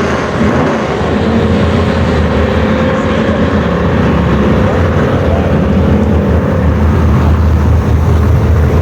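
Holden VP Commodore engine running hard and steadily during a drag-strip pass, a loud drone whose pitch holds fairly level and whose loudness slowly rises.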